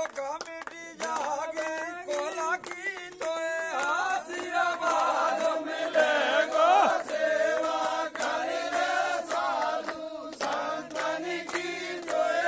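A group of men chanting a devotional song together on long held notes, with hand claps keeping time.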